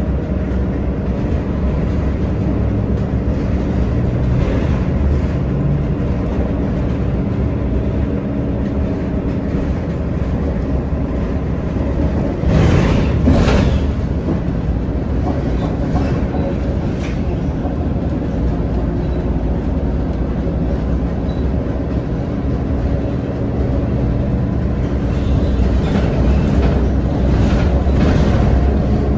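Inside a moving city bus: the engine's steady low rumble and road noise with light rattling from the cabin, and a louder rushing swell for a second or two about halfway through.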